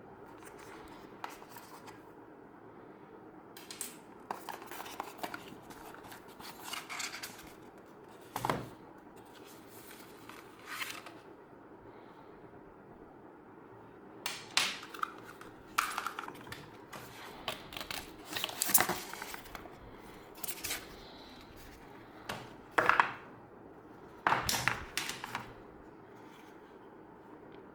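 A product box and its packaging being handled and opened by hand: irregular rustles, scrapes and light knocks, coming closer together and louder in the second half.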